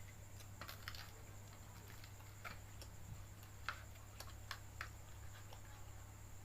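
Faint eating noises while eating fried noodles: a dozen or so small, sharp clicks at irregular intervals, the loudest about two-thirds of the way through, over a steady low electrical hum and a thin high whine.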